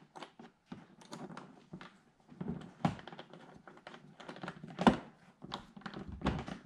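Irregular small clicks, taps and rattles of a splitter winglet being handled against a C7 Corvette's front fascia while its little screws are started by hand, with a sharper knock about five seconds in and another near three seconds.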